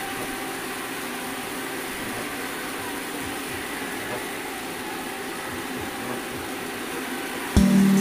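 Manual metal lathe running with a steady mechanical hum and whirr. Near the end, louder music cuts in abruptly.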